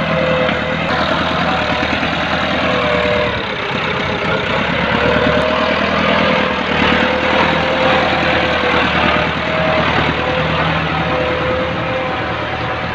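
Massey Ferguson 375 tractor's diesel engine running steadily as it pulls a spring-tine cultivator and concrete plank leveller through tilled soil, with a wavering higher whine over the engine drone.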